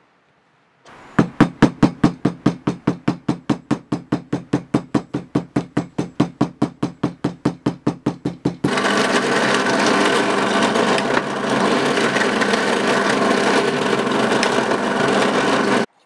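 Leather sheath edge being rubbed back and forth with a hand burnishing tool, about five strong strokes a second. It changes suddenly to a steady, loud, harsh noise for about seven seconds, which cuts off abruptly.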